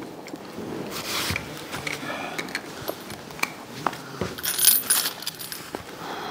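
Small metal objects clinking and jingling amid scattered handling knocks and clicks, with the loudest jingle about four and a half to five seconds in.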